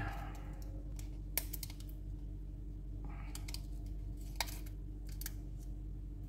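Small plastic clicks and faint scraping as an LCD panel is worked loose by hand from its plastic frame and backlight part, with two sharper clicks about a second and a half in and again past four seconds. A steady low hum runs underneath.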